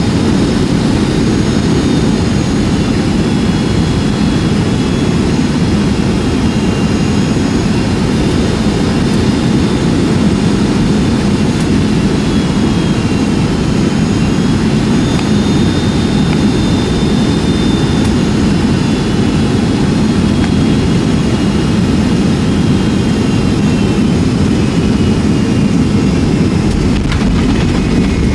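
Inside the cabin of a Boeing 757-200: a steady, loud rush of jet engine and airflow noise, with thin high engine whines that drift slightly in pitch.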